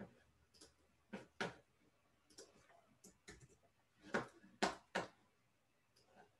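Computer mouse clicking: about seven faint, short clicks at irregular intervals, some close together in pairs, as objects are selected on screen.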